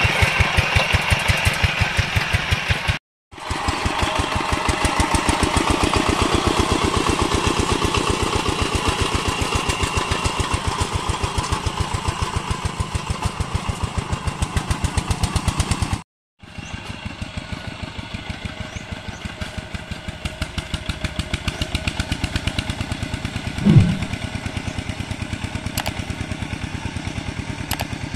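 Yanmar single-cylinder diesel of a Quick G1000 two-wheel hand tractor chugging steadily under load while ploughing a muddy field, an even rapid run of firing pulses. The sound drops out briefly twice, is quieter after the second break, and a short loud falling tone stands out about three-quarters of the way through.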